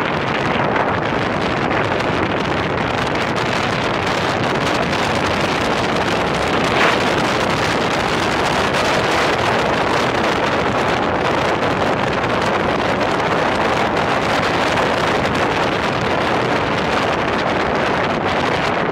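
Steady wind rush on the microphone of a BMW motorcycle riding up a gravel road, mixed with the bike's engine and tyre noise. A single brief knock about seven seconds in.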